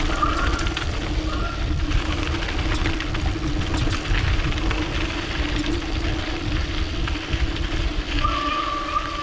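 Mountain bike descending a dirt trail at speed: wind buffeting the action camera's microphone and tyres rolling over dirt, with a steady buzz. A steady high whine joins about eight seconds in.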